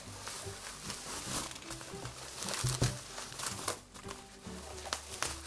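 Plastic bubble wrap crinkling and rustling in irregular bursts as it is handled and pulled open, over faint background music.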